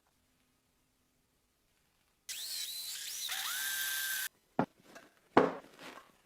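A power tool whining for about two seconds, its pitch dipping and then holding steady before cutting off sharply, followed by three knocks, the loudest in the middle.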